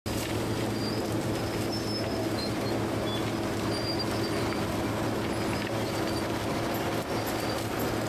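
Large crawler bulldozer's diesel engine running with a steady drone as its blade pushes through brush and small trees, with short high squeaks over it.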